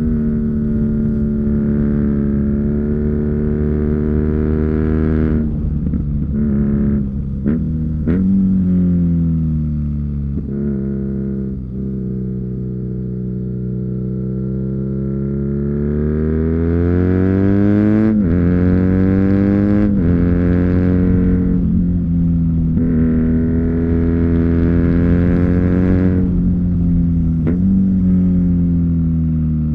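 2019 BMW R NineT's boxer twin through an Akrapovic slip-on exhaust, heard from the rider's seat while riding: running at steady revs, with quick breaks in the note at several gear changes. Near the middle the revs fall away off the throttle, then climb again under acceleration up to two quick upshifts, before settling back to steady running.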